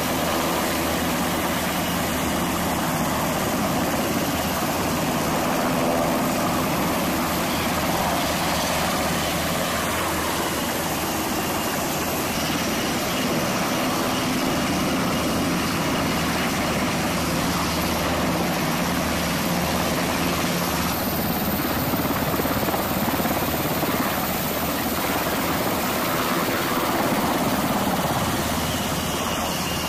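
Navy MH-60 Seahawk helicopters lifting off and flying low past the camera: a loud, steady rotor and turbine noise.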